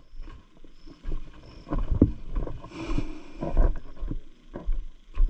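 Irregular muffled thumps and rustling from a body-worn action camera while its wearer walks: footsteps and handling knocks carried through the mount. A short hissing rustle comes about three seconds in.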